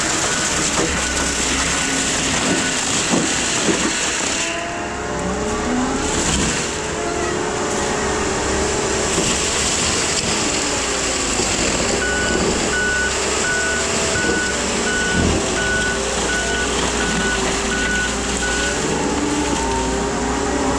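Case skid steer with a Shearex mulching head running hard, the engine and mulcher pitch rising and falling as it works. A backup alarm beeps evenly at the start, and again for several seconds from a little past the middle while the machine reverses.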